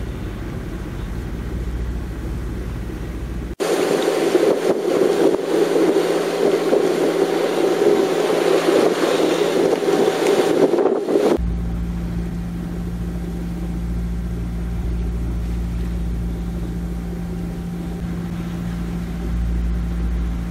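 Engine of a small sailing yacht running steadily under way in a calm. For several seconds in the middle it gives way to a louder rush of wind and water.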